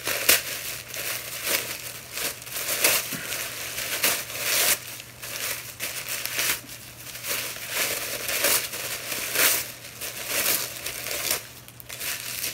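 Tissue paper crinkling and rustling in irregular bursts as a wrapped gift is unwrapped by hand.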